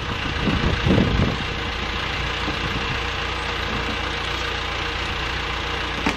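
An engine idling steadily, with faint voices in the first second and a short knock near the end.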